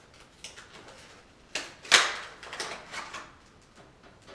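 A vanity light fixture and its metal mounting hardware being handled: a string of clicks and knocks, the loudest a sharp knock about two seconds in.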